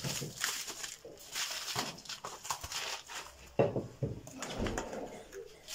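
A knife scraping and prising frozen meat out of a plastic tray, with irregular crackling and scraping and a sharp knock about three and a half seconds in, as the meat goes into a plastic bucket.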